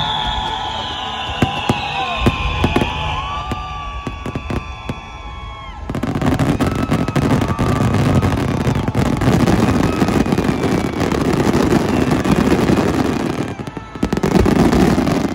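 Aerial fireworks going off in quick succession, shell bursts with crackle. About six seconds in they thicken into a dense, continuous barrage. There is a brief lull near the end, then one more loud volley.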